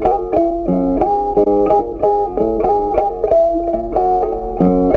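Background music: a melody of quick plucked string notes, played in a steady rhythm.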